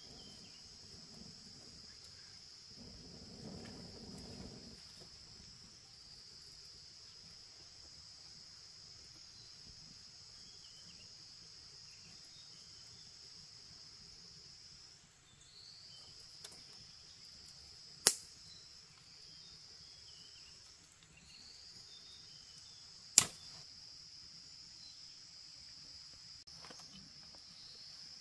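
Steady high-pitched insect chorus of crickets or cicadas, with a brief rustle about three seconds in and two sharp cracks about five seconds apart in the second half.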